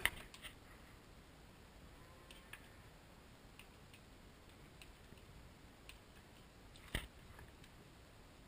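Hand trimming of a bull's hoof: scattered quiet clicks of a cutting tool on hoof horn, with a sharper crack right at the start and the loudest about seven seconds in.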